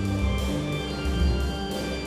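Pipe organ playing sustained chords over a pulsing low pedal bass line, with light percussion keeping a steady beat.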